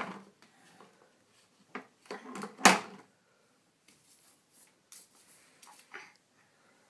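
Paintbrushes knocking and clicking against plastic paint cups on a wooden easel tray, with two sharp knocks, one at the start and one near the middle, and a few faint taps and brush rubs on paper.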